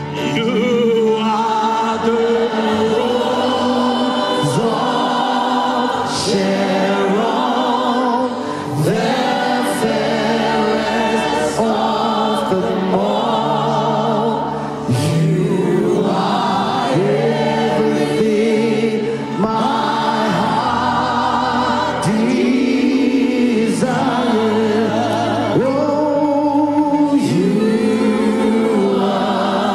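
A choir singing a gospel worship song in long held notes, backed by a live band of keyboards, electric guitar and drums with cymbals.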